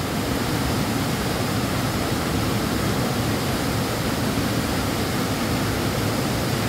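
Waterfall rushing steadily, an even hiss of falling water with no breaks.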